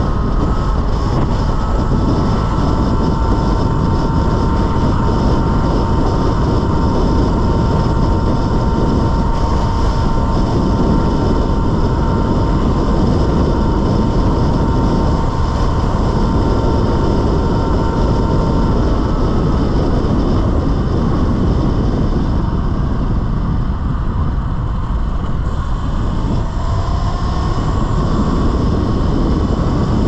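Talaria Sting electric dirt bike's motor whining at a steady pitch over a loud rushing of wind and tyres while riding. The whine drops away about two-thirds of the way through and rises again in pitch near the end as the bike speeds up.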